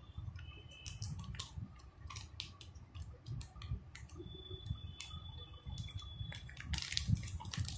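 Clear plastic bag crinkling and rustling as the RO membrane cartridge sealed inside it is handled and turned over, with many small scattered clicks.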